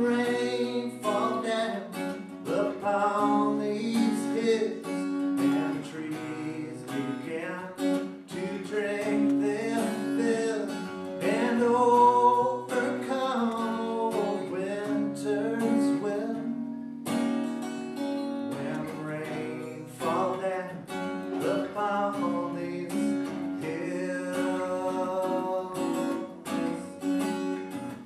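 Acoustic guitar strummed steadily as song accompaniment, with a man's voice singing a melody over it.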